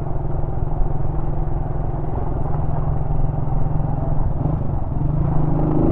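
1999 Honda CG Titan's single-cylinder four-stroke engine running on the move, heard through a foam-covered microphone. Its steady note dips briefly about four and a half seconds in as the bike turns a corner.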